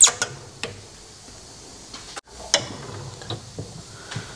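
Scattered metal clicks and knocks, the loudest at the very start, as the valve seat cutting machine's tool head is moved and set over a valve seat on an aluminium cylinder head. No cutting or motor run is heard.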